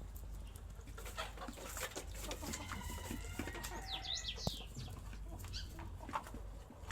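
Chickens clucking, with a quick run of high chirps about four seconds in, over a steady low rumble.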